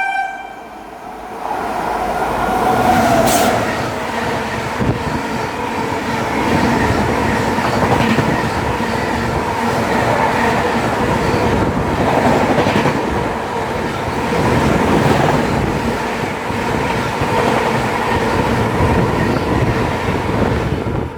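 Fast Indian Railways express train passing, its coaches rushing and clattering over the rails. It builds up over the first couple of seconds and then stays loud and steady.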